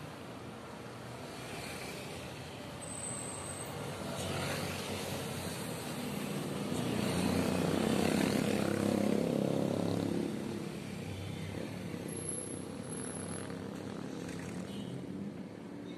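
Street traffic with motorcycles and cars passing. A motorcycle passes close about halfway through, its engine swelling to the loudest point and then fading.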